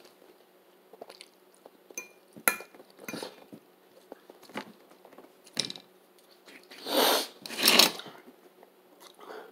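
A person eating stuffed bell pepper: chewing and mouth sounds with small clicks of a fork against a plate, and two louder noisy sounds near the end.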